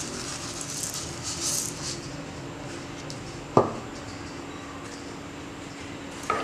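Granulated sugar pouring from a cup onto chopped raw mango and water in a pot: a soft granular hiss that fades after about two seconds, then one light knock a little past halfway, over a steady low hum.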